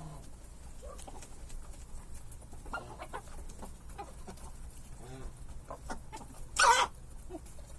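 Chickens clucking softly with short calls, and a little before the end a chicken gives one short, loud sneeze.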